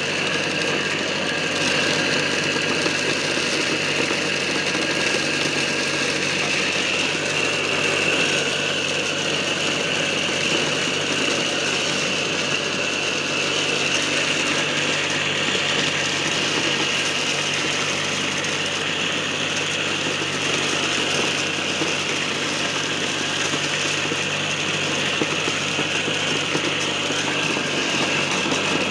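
Homemade mini corn sheller, a wooden box driven by belt from a converted water-pump electric motor, running steadily as dried cobs are fed in by hand: a constant high whine over a low hum, with the dense rattle of kernels being stripped off the cobs.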